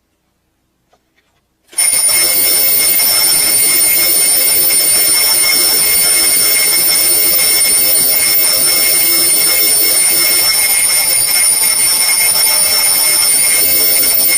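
Twin-bell alarm clock ringing, very loud and unbroken, starting suddenly about two seconds in with a shrill, steady ring.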